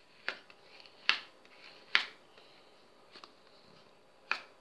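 A thin, clear plastic sheet handled and peeled over a paper towel during nail-art stamping, giving a few sharp plastic clicks with light rustling between them.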